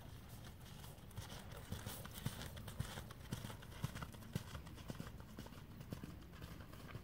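Hoofbeats of an appaloosa mule loping on dirt: a regular run of dull thuds, about two a second, growing fainter near the end.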